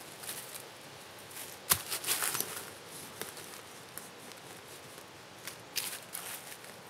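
Handling noises while a tarp is rigged: a sharp snap about a second and a half in, a burst of rustling just after it, then scattered small clicks and rustles.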